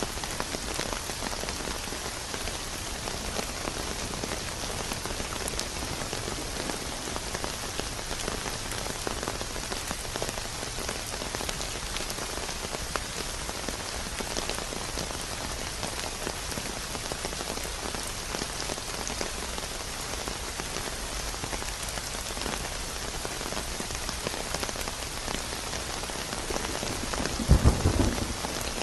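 Steady rain falling, an even hiss with scattered drops. Near the end a sudden, loud low rumble of thunder breaks in.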